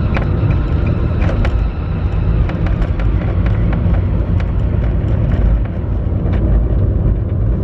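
A car on the move, heard from inside the cabin: a steady low rumble of engine and road noise, with scattered faint clicks.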